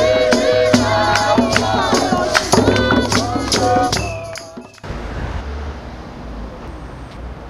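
Voices singing to drums and rattle-like percussion, with regular sharp beats, from a street song-and-dance troupe. About two thirds of the way in it cuts off abruptly, leaving a steady low outdoor rumble.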